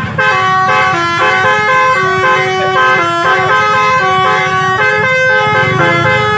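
Telolet horn on a bus: a multi-tone musical horn playing a tune of quick stepped notes, over a low engine rumble.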